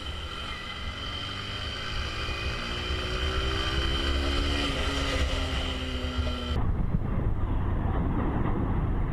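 Honda CG motorcycle engine accelerating, its pitch rising steadily with a small drop about five seconds in, over wind rush on the helmet microphone. About six and a half seconds in it cuts abruptly to a duller, steady rush of wind and engine noise.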